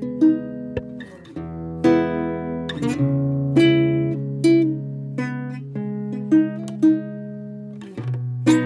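Background music: acoustic guitar playing a slow line of plucked notes over longer, held low notes.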